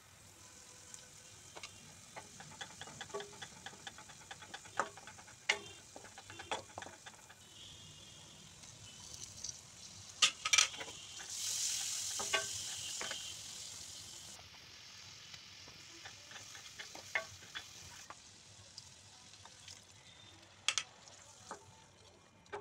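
Onion and spice masala frying in oil in a stainless steel kadai, stirred with a spatula that knocks and scrapes against the pan in sharp clicks. About eleven seconds in, a loud sizzle swells for a few seconds and slowly fades as chopped tomatoes hit the hot oil.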